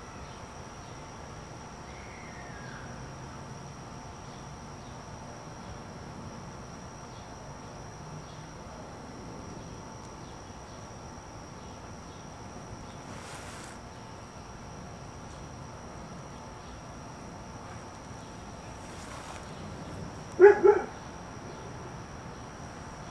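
Insects, likely crickets, keep up a steady high-pitched trill, and a dog barks twice in quick succession about twenty seconds in.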